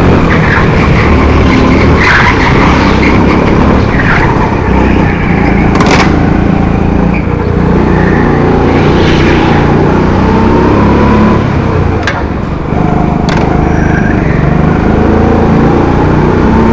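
Honda 200cc kart engine running hard, its pitch rising and falling with throttle, with the tyres squealing through the corners. A few sharp knocks come about six, twelve and thirteen seconds in.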